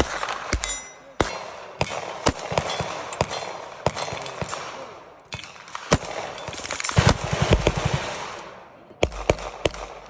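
Gunfire: many sharp shots at irregular spacing, more than one gun firing, with a quick run of shots a little past halfway, over a steady background hiss.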